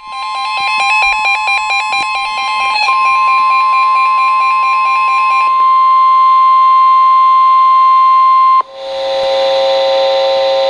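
Emergency Alert System alert tones. A steady high beep with a rapidly stepping electronic tone pattern over it, the pattern dropping away about five and a half seconds in. About eight and a half seconds in it breaks off into a different, lower, chord-like alert tone with a hiss behind it.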